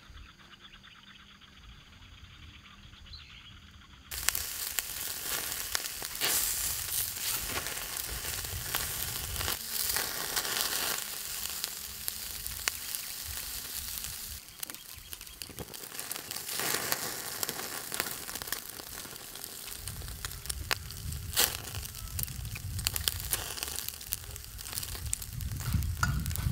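Strips of meat sizzling on a small charcoal grill's wire mesh over hot coals, a steady hiss with scattered sharp pops and crackles. It starts suddenly about four seconds in, after a quieter stretch.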